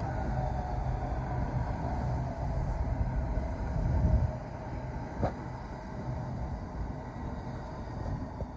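Southeastern Class 395 Javelin electric multiple unit running into the platform, a steady low rumble of wheels and traction equipment that swells about four seconds in. There is a single sharp click about five seconds in.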